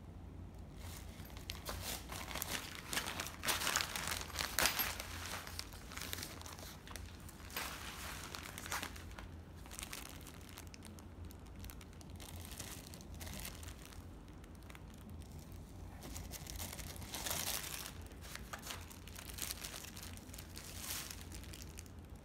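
Clear plastic zip bags and small packaging crinkling as they are handled, in irregular bursts, loudest a few seconds in and again about three quarters of the way through.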